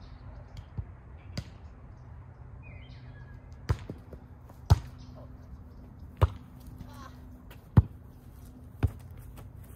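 Volleyball rally: a string of sharp slaps as hands and forearms strike the ball, two light ones early and then five loud ones about a second to a second and a half apart.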